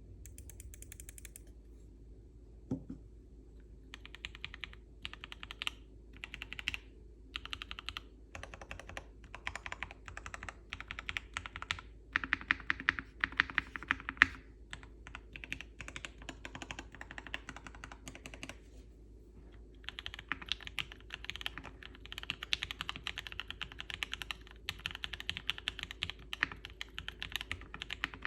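Typing on a Tofu60 custom mechanical keyboard with lubed and filmed Gateron CJ linear switches, a POM plate, foam and tape mod, and double-shot PBT keycaps. Quick key presses come in bursts after a quiet few seconds, pause briefly about two-thirds through, then run on as steady fast typing.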